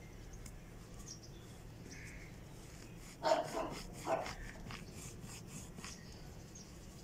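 A dog barking twice in the background, a little over three seconds in, the barks just under a second apart.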